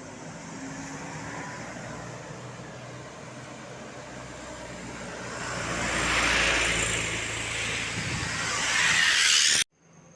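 Road vehicles driving past close by: engine and tyre noise swells to a peak about six seconds in and again near the end, then cuts off abruptly.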